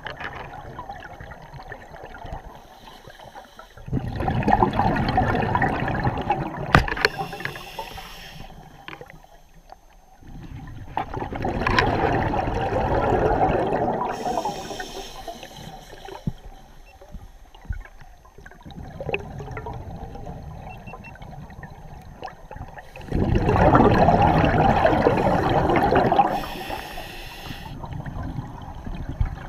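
Scuba regulator exhaust heard underwater: three long surges of exhaled bubbles, each followed by a short high hiss, over a steady rush of water.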